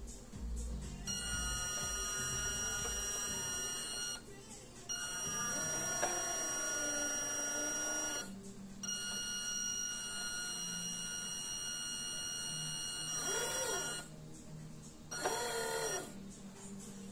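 Small electric gearmotor driving a homemade cannon-lifting gear train, steel gears turning a threaded rod. It whines steadily in four stretches, stopping and starting again with short pauses in between.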